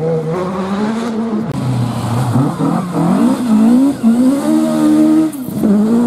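Rally car engines at full speed on a gravel stage, the engine note climbing and dropping again and again through gear changes and lifts. About a second and a half in, one car's sound breaks off and another's takes over.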